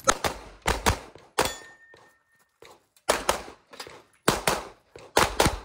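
Pistol shots fired in quick pairs, with short pauses between the pairs as the shooter moves between targets.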